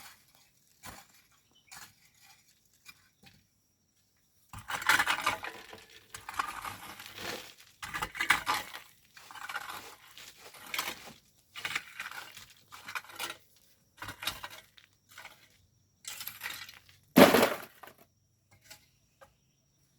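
Hand tools digging into volcanic sand and gravel: repeated scraping strokes about a second apart, with stones clinking and knocking. The loudest hit comes near the end.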